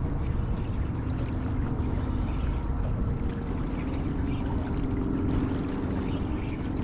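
Fast, churning river current rushing and lapping against a small fishing boat, with a low steady rumble. A faint steady hum sits underneath and steps up a little in pitch about halfway through.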